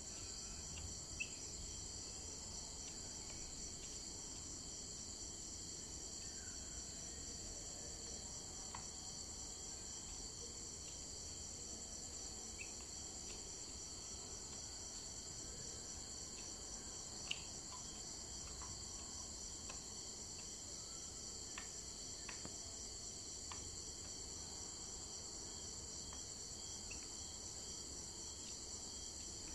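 Steady, high-pitched trilling of insects, with a few faint short clicks scattered through it.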